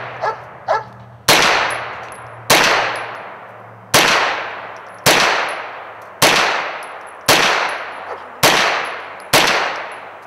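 Rifle fired eight times at a steady pace of about one shot a second, each shot followed by a long fading echo. Just after the start come two light metallic clinks.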